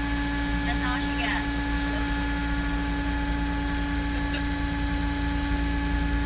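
A diesel engine running at a steady speed, a constant low hum with a fixed whine above it.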